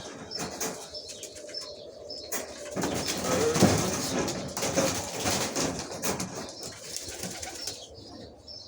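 Domestic pigeons in a loft cage. Starting about two and a half seconds in, there is a burst of wing flapping, scuffling and rustling that lasts several seconds, with some cooing, before it settles near the end.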